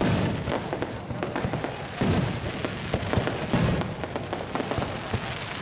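Aerial fireworks bursting overhead: a deep boom right at the start, another about two seconds in and another about three and a half seconds in, with crackling between the bursts.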